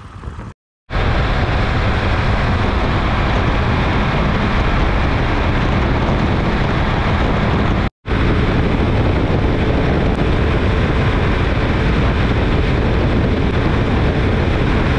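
Triumph Tiger motorcycle at high speed, about 170–180 km/h: a steady rush of wind on the handlebar camera's microphone over the engine's drone. The sound drops out briefly twice, just under a second in and about halfway.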